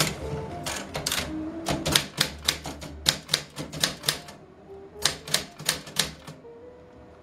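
Portable manual typewriter being typed on: sharp key strikes in quick, irregular runs, with a short pause about two-thirds of the way in and fewer strikes near the end.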